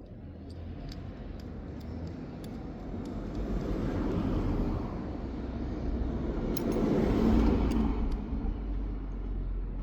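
A road vehicle passing: a wide rumble with no clear pitch that builds, swells twice, and then eases off, with a few faint light clicks over it.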